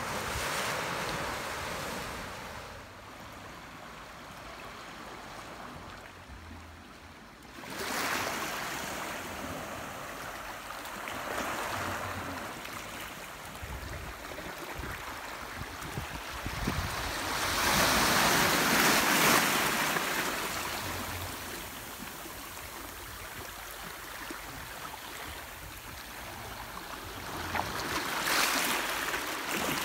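Gentle sea waves washing in over rocks and a pebble beach. The sound swells and eases every few seconds, loudest about two-thirds of the way through.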